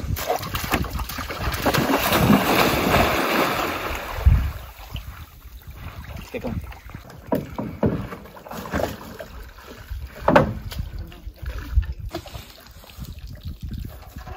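Canoe on the water: a rushing sound for the first few seconds, then scattered paddle splashes and knocks against the hull.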